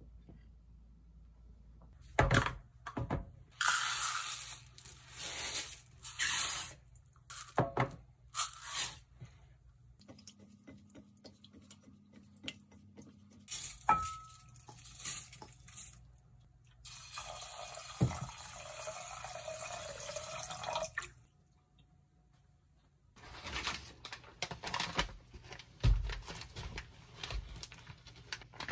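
Kitchen sink sounds: tap water running in spells, with a steady stream for several seconds in the middle, and rice being washed in a strainer bowl and tipped into a pot.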